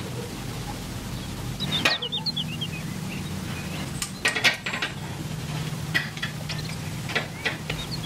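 Coiled copper tubing being handled and a small tube cutter fitted onto it: sharp metallic clicks and knocks, with a few short squeaks about two seconds in. A steady low hum underlies it.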